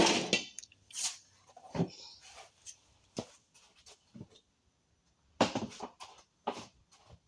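Snap-ring pliers and hand tools working the bearing's retaining snap ring out of the hub bore: irregular metal clicks and scrapes, with a cluster at the start and another about five and a half seconds in.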